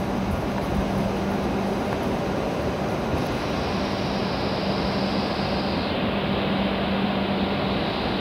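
JR West W7 series Hokuriku Shinkansen train pulling slowly into the platform and coming to a stop: a steady rumble with a low hum, its higher hiss falling away about six seconds in as it halts.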